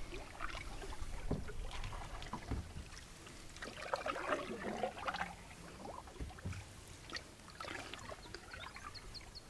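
Canoe paddling: a wooden paddle dipping and pulling through calm lake water in irregular strokes, with soft splashes and drips.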